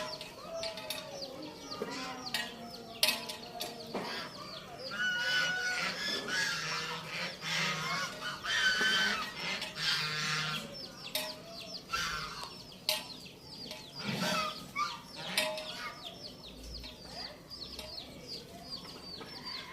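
Domestic fowl calling: many short, high calls repeated throughout, with a louder run of longer, drawn-out calls in the middle.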